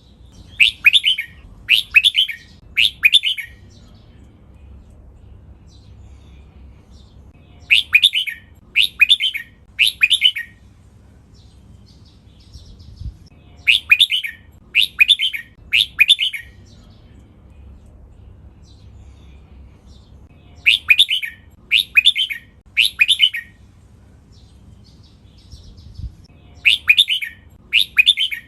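Red-whiskered bulbul singing: bright three-phrase song bursts, repeated about every six to seven seconds, over a faint low hum.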